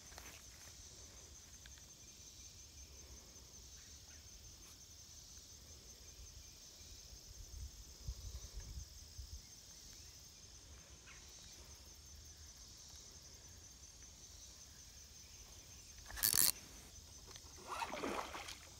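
Faint steady high-pitched insect chirring with a fast even pulse, with a brief low rumble of wind about halfway through. About two and a half seconds before the end comes a sudden loud burst of noise, then a second rougher burst of handling noise.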